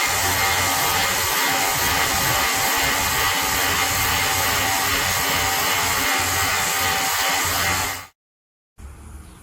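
Steady whir of a small electric air compressor running, a portable tyre inflator, cutting off abruptly about eight seconds in.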